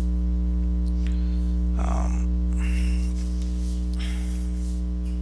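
Steady electrical mains hum with a stack of even overtones, a little quieter from about three seconds in, with a few faint brief noises about two and four seconds in.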